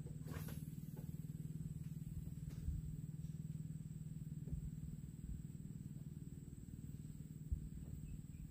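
A small boat engine running steadily, a low even hum with a fast pulse to it, with a couple of faint knocks on the boat.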